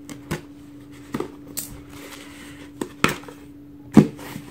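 Hands working a cardboard box out of a tight clear plastic shipping pouch: scattered crinkles, scrapes and knocks of plastic and cardboard, the loudest knock about four seconds in. A steady low hum sits underneath.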